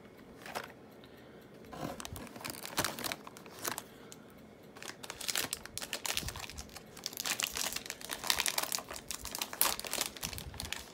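A foil blind-bag pack being torn open and crinkled by hand. The first half has sparse crackles, and the crinkling becomes dense and continuous from about halfway through.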